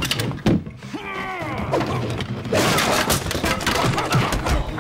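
Martial-arts film fight sound effects: a sharp hit about half a second in, a falling shouted cry, then a fast flurry of punch and kick impacts.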